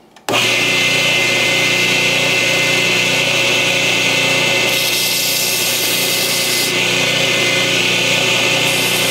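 Belt grinder running with an 800-grit belt as a steel knife blade is ground on it, a steady motor whine under a grinding hiss. It starts abruptly, and a brighter hiss comes in twice for about two seconds.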